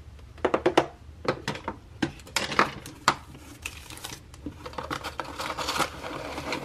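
Dyson Airwrap attachments and storage case handled: a quick run of sharp plastic clacks and knocks in the first three seconds, then a longer rustle as a wrapped attachment is pulled out of its paper sleeve.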